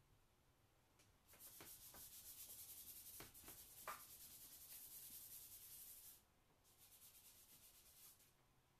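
A drawing stick scratching over Bristol paper in quick strokes: a faint scratchy hiss lasting about five seconds with a few light taps, then a shorter stretch of scratching near the end.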